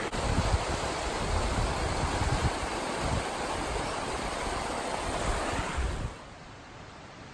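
Steady rushing of fast water below a steel suspension footbridge, with a few low thumps, falling away to a much quieter outdoor hiss about six seconds in.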